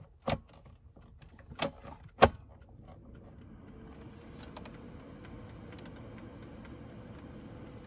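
A few knocks as the air fryer is handled, the loudest a bit after two seconds. About three seconds in the air fryer's fan starts up, a steady hum, with its mechanical dial timer ticking about four times a second.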